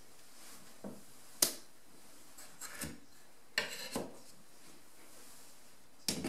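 A wooden lid slid off a presentation box and set down on a wooden tabletop by hand: a handful of light knocks, taps and short scrapes, the sharpest a single knock about a second and a half in, a cluster of taps around four seconds and another clatter near the end.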